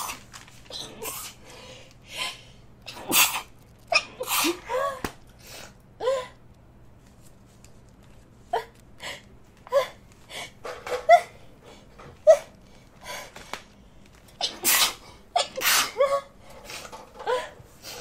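A person sneezing over and over: a long fit of more than a dozen short, sharp sneezes, some with a quick gasping intake before them, and a brief lull partway through. The sneezing is set off by dusty old books.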